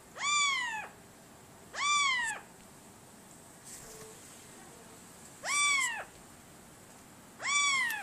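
Four drawn-out meows, each about half a second long, rising then falling in pitch. Two come close together near the start and two more in the second half.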